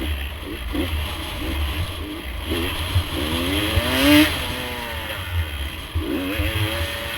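Dirt bike engine revving as it rides, pitch climbing sharply about three to four seconds in and again near the end, over a steady low rumble of wind on the microphone.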